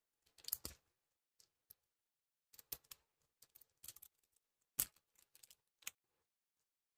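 Faint clicks and small snaps of a plastic Mashems capsule ball being twisted and pried open by hand, with the loudest snap a little under five seconds in.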